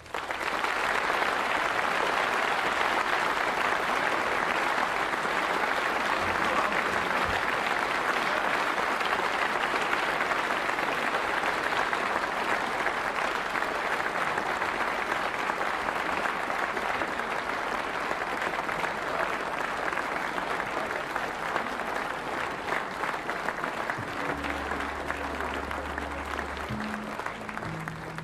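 Audience applause that starts abruptly as the piece ends and goes on steadily, slowly easing off. Near the end a few low held notes sound under it.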